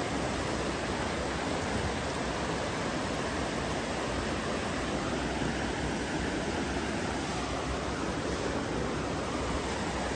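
Rocky mountain stream rushing steadily over stones, an even, unbroken water noise.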